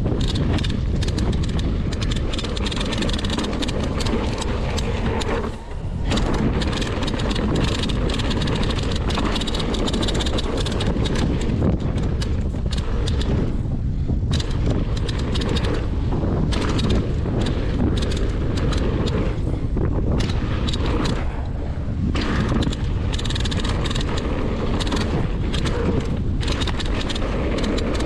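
Mountain bike descending a dirt flow trail at speed: heavy wind buffeting on the rider's camera microphone over a constant rumble of tyres on dirt, with quick rattles and clatters from the bike over bumps.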